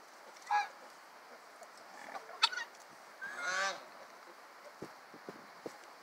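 Guineafowl calling: a short harsh call about half a second in, then a longer rasping call with a fast pulsing chatter a little after three seconds. A sharp click comes just before two and a half seconds and is the loudest sound.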